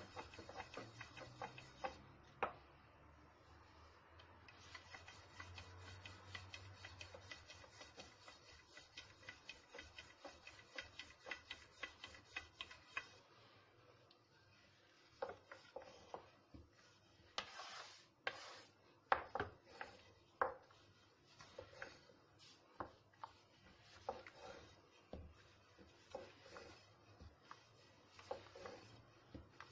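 Thin wooden rolling pin (oklava) rolling out lavash dough on a floured tray: a soft rubbing with rapid light clicks, then from about halfway on, sharper scattered knocks of the pin.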